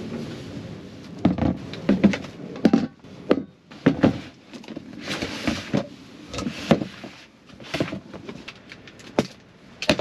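Camping gear being handled and set down on a hard tabletop in a small space: a string of irregular knocks and thunks from containers and bottles, and the snap of a plastic storage-box lid, with rustling between them.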